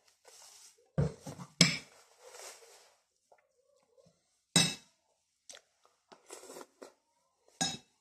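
Tableware sounds: a plastic water bottle rustling as it is capped and set down, then a plastic spoon knocking and scraping on a plate of rice. A few sharp knocks stand out, the loudest about a second and a half in, others near the middle and near the end.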